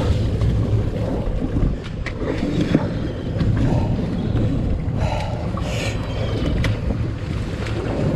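Steady low rumble of a boat at sea with wind buffeting the microphone, broken by a few short sharp clicks.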